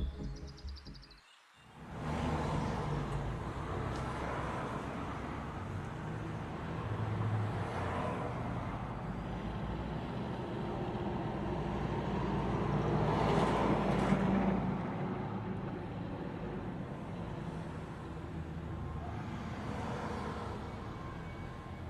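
Road traffic: a steady rumble with vehicles going by in slow swells, the loudest a little after the middle. A short music cue fades out just before it starts.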